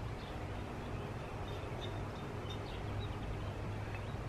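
Steady low engine hum in the background, with a few faint high chirps about halfway through.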